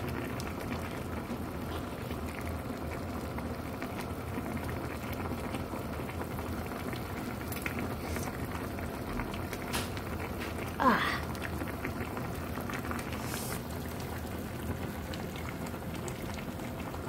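Hot-pot broth boiling steadily in an aluminium pot, a continuous bubbling. About eleven seconds in there is a brief sliding sound.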